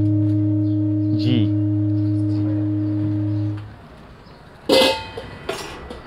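Singing bowl tuned to C ringing with a steady low hum and overtones, then damped to a sudden stop a little past halfway. Near the end come a loud metallic clank and a smaller one.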